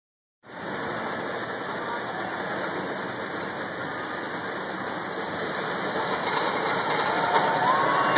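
Steady mechanical running noise of a wooden roller coaster's lift hill as a train climbs to the crest, growing louder toward the end, with a few riders' voices starting up as it reaches the top.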